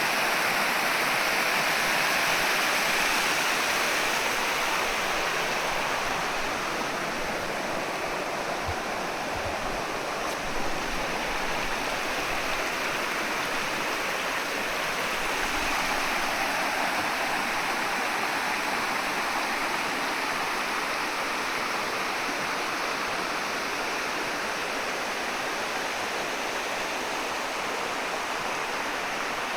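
Flowing water rushing steadily, easing a little after about four seconds.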